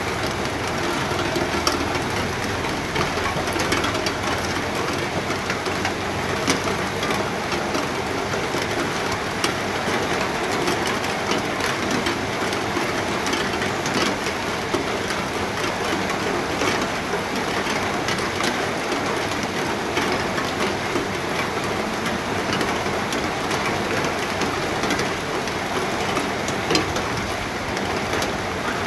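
Steady rain falling, a continuous even hiss with scattered sharper drop ticks.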